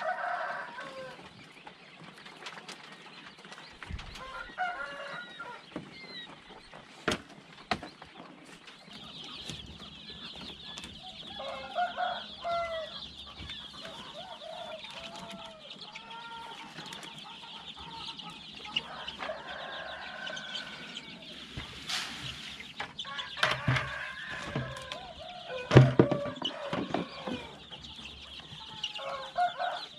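Chickens clucking in short calls every few seconds. There are a few sharp knocks and clatters from the wire-mesh hoop coop being handled, the loudest near the end.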